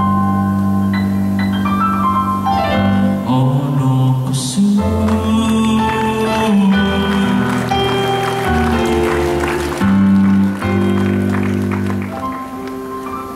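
Live band music carried by keyboard chords over held bass notes that change every second or two; it gets quieter near the end.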